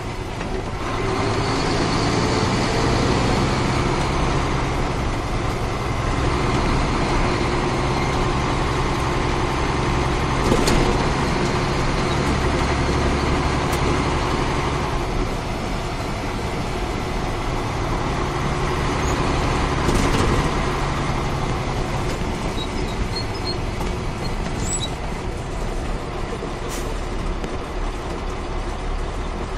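Caterpillar 3406 inline-six diesel of a Ford L9000 truck pulling the truck along, the engine note rising and falling as it drives. Two sharp knocks come through, about a third and two-thirds of the way in.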